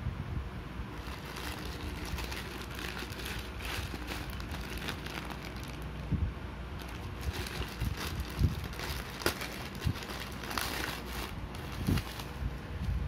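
Plastic courier mailer bag crinkling and rustling as it is handled and opened, with a few soft bumps of handling.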